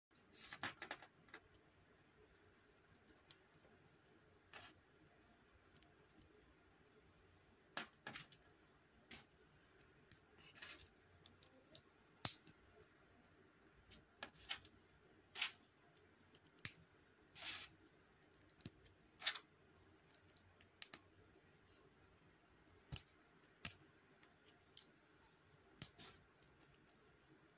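Small plastic Lego bricks being handled and pressed together, giving faint, irregularly spaced sharp clicks and snaps, with a quick cluster of them at the start.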